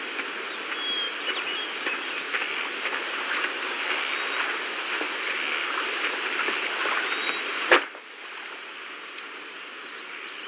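Steady outdoor ambience, an even insect-like hiss with a few faint chirps and small clicks. A single sharp click comes about three quarters of the way through, after which the background is somewhat quieter.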